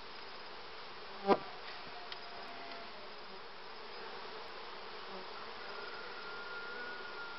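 Honeybee colony humming steadily from an open hive, with a single sharp knock about a second in.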